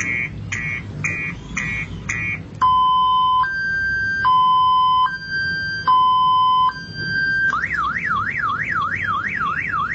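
Multi-tone siren sound cycling through its patterns. First come about two pulsed beeps a second, then a slow two-tone high-low alternation, then a rapid up-and-down wail of about two sweeps a second, which turns faster near the end.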